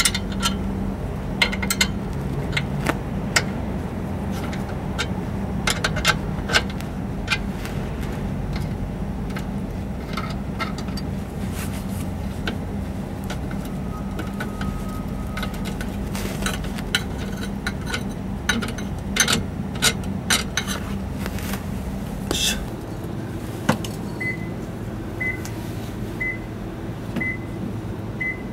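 Box-end wrench clinking and clicking irregularly against a stainless exhaust flange nut and pipe as it slips and fails to grip the nut. Near the end, after a change in the background, a short high beep repeats about once a second.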